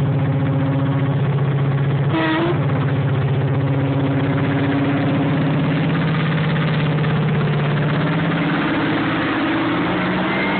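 Class 55 Deltic locomotive's twin Napier Deltic two-stroke diesel engines working as it pulls away, passing close by, with the engine note rising slowly. A brief higher-pitched sound cuts in about two seconds in.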